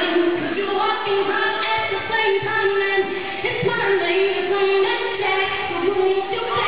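A song playing: a high voice sings long held, gliding notes over backing music.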